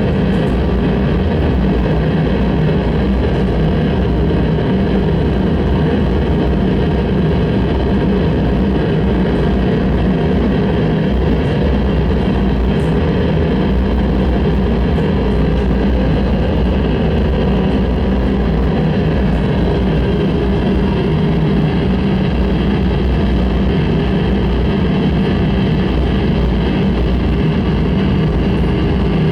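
Harsh noise music: a loud, unchanging wall of dense noise with a heavy low rumble.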